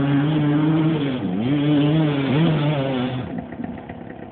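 Off-road motorcycle engine revving hard on a steep dirt climb, the revs dipping briefly twice and rising again. The engine sound falls away about three seconds in.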